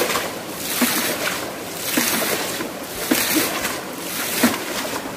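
Water splashing over and over as a shallow stream pool is bailed out with a plastic container, about one scoop-and-throw a second. The pool is being emptied to get at the fish trapped in it.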